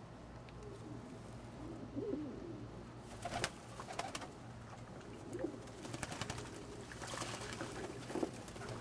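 Old German Owl pigeons cooing over and over, with sharp splashes and wing flicks from about three seconds in as they bathe in a shallow tub of water.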